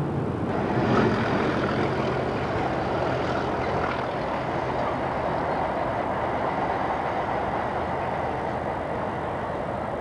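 A train running along the track: a steady rumble of wheels on rail, loudest about a second in and easing off slowly.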